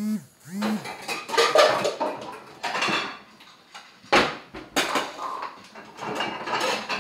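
Dishes and cutlery clattering: irregular clinks and knocks of bowls, plates and utensils being handled while food is served out.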